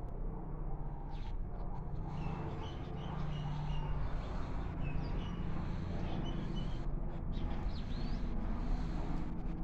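Outdoor background: a steady low rumble with short, high bird chirps scattered through it, a few of them about two seconds in and more near the end.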